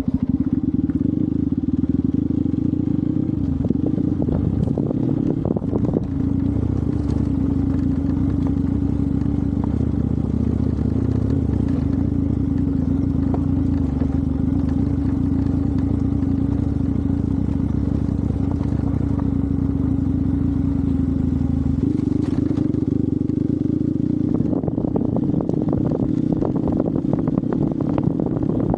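Hero Xpulse 200's single-cylinder engine running under way on an off-road ride, its note holding mostly steady, shifting slightly a few seconds in and rising a step past twenty seconds, then running rougher near the end.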